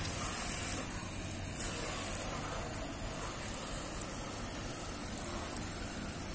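Dura-X hand-pumped pressure sprayer's nozzle hissing steadily as a pressurised jet of water sprays onto a motor scooter's plastic engine cover and spatters on the panels.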